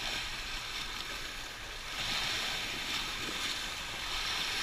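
Small waves lapping and washing over a flat rock at the water's edge, a steady splashing wash that swells a little about two seconds in.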